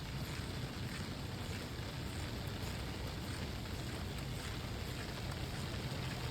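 Steady rain sound effect: an even hiss of rainfall with a low rumble underneath and faint scattered drop ticks, looping without change.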